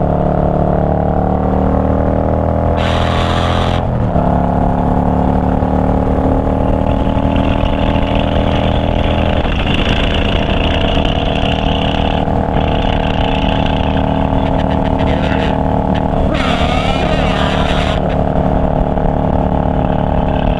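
V-twin cruiser motorcycle engine running steadily at road speed, heard from the rider's seat. Its note shifts about four seconds in and again near ten seconds. Two brief rushes of wind hiss come, one near the start and one late.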